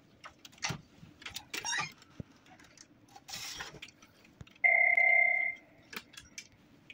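Light clicks, knocks and a brief scrape of laser-printer parts being handled and fitted together, and a little before five seconds a steady electronic beep lasting about a second, the loudest sound.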